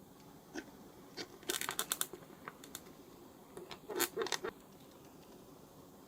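Hands handling a plastic action figure and its packaging: scattered small clicks and taps, with a quick flurry of clicks about a second and a half in and another about four seconds in.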